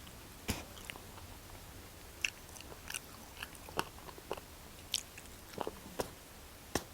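Close-up eating sounds: chewing and biting into fried chicken legs, with irregular sharp crunches and clicks.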